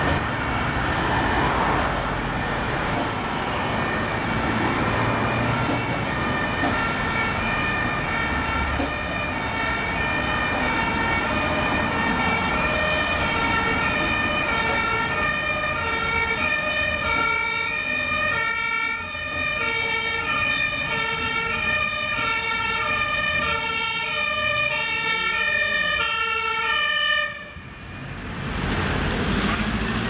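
German two-tone emergency sirens (Martinshorn) from fire engines and an ambulance on an emergency run, switching steadily between a high and a low note over road traffic noise. The sirens come up out of the traffic noise and grow clearer, then cut off suddenly near the end, leaving traffic.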